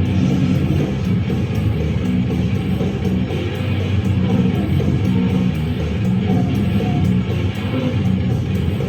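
Goregrind played live: loud heavy-metal music led by electric guitar, a dense, unbroken wall of sound.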